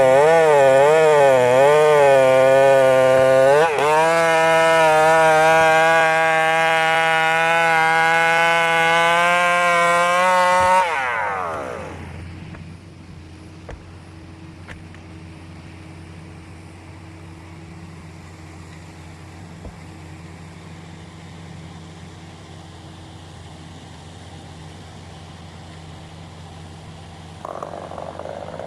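Two-stroke chainsaw running at full throttle, its pitch wavering for the first few seconds as it works through wood, then steady and high until the throttle is released about eleven seconds in. It then runs quietly at a low, steady idle before revving up again near the end.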